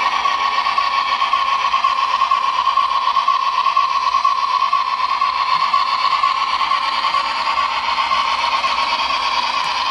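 HO-scale Mantua 2-8-2 model steam locomotive running in reverse under its sound decoder and new can motor. It gives a steady whir with a strong mid-pitched tone and a hiss above it.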